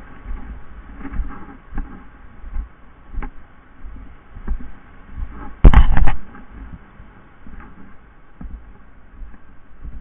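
Footsteps on dry leaf litter and brushing through undergrowth, with irregular thuds. A short, loud cluster of several sharp knocks comes a little under six seconds in.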